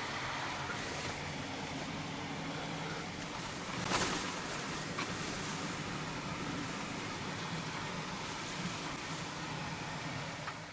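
Steady background hiss and hum, with a brief rustling noise about four seconds in and a small click about a second later.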